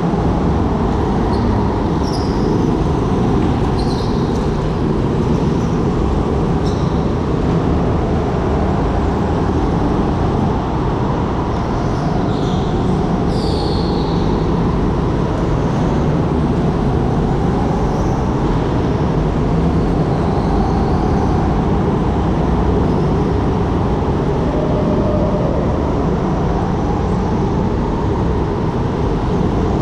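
Go-kart driving around an indoor track, heard from on board: a loud, steady rumble, with a few short high tyre squeals in the corners.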